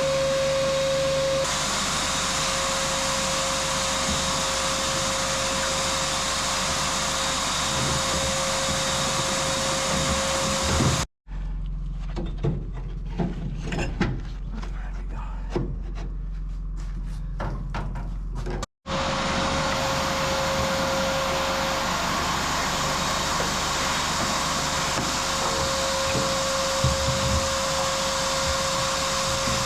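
Handheld electric power tool running steadily with a constant whine while it works a surface. About eleven seconds in it cuts off abruptly for a quieter stretch of scattered knocks and scrapes, then runs again.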